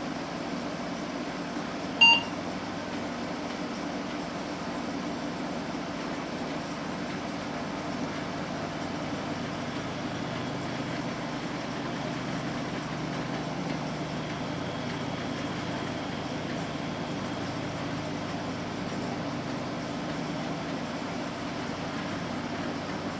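Gateway 2000 P5-133 XL desktop PC running with a steady fan and power-supply hum. About two seconds in, its PC speaker gives one short beep, the power-on self-test beep as the machine restarts.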